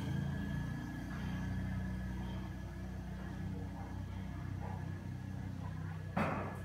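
Steady low drone of a news helicopter's engine and rotor, heard through the on-board microphone. A short, loud rush of noise comes about six seconds in.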